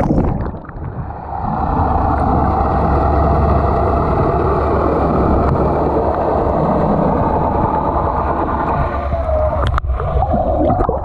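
Sound from under the sea surface: a splash as the camera goes under, then a steady muffled rushing hum with the highs cut away. Near the end it breaks up as the camera nears the surface amid bubbles.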